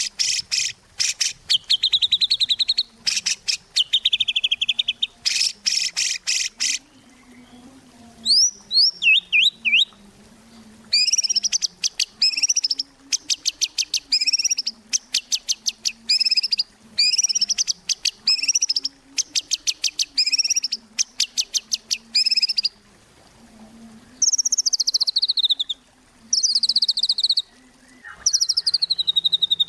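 White-rumped shama singing loud, fast phrases of rapidly repeated high notes and rattling trills, some sweeping down in pitch, broken by short pauses. A faint low hum runs underneath.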